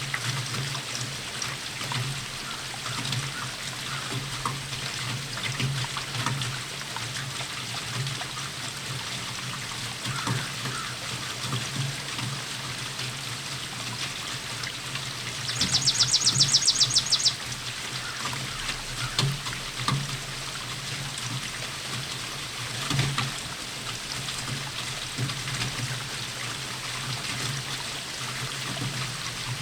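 Steady rainfall with water trickling and dripping, as from a gutter or roof edge. About halfway through, a fast, high-pitched trill lasting under two seconds stands out as the loudest sound.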